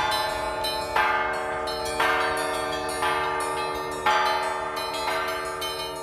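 The Federation Bells, upturned harmonic bells sounded by their automated striking system, struck about once a second in a slow sequence, each stroke ringing on under the next.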